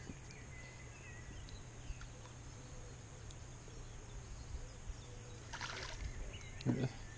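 Quiet outdoor ambience by a pond: a steady low hum under faint, scattered bird chirps. There is a brief rustle about five and a half seconds in and a short low voice-like murmur near the end.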